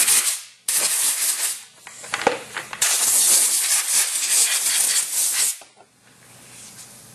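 Compressed-air blow gun blowing out a riding mower's air filter cover in hissing blasts: one ending just after the start, a short one about a second in, and a longer one of nearly three seconds.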